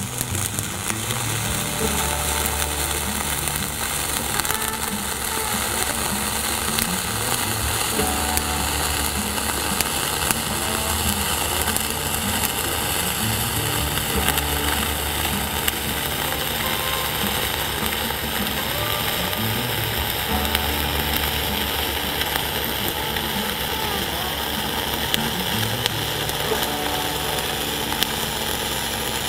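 Flux-cored arc welding with 0.045-inch dual-shield wire: the arc keeps up a steady crackle and sizzle without a break while a cap bead is laid on steel plate.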